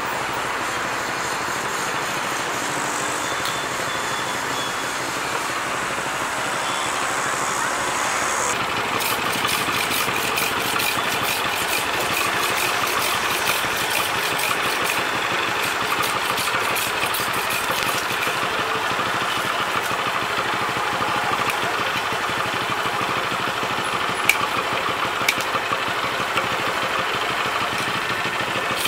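Motor-driven sugarcane crusher running steadily. From about eight seconds in, a dense crackle of fine clicks joins the running as cane stalks are fed through its steel rollers, with a few sharper cracks near the end.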